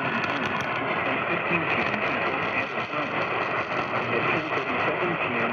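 NOAA Weather Radio broadcast heard through a radio receiver: the synthesized announcer voice carries on reading a severe weather warning over a steady static hiss.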